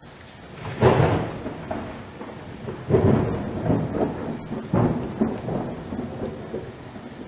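Thunderstorm: steady rain with three loud thunderclaps, about a second, three seconds and nearly five seconds in, each rumbling away.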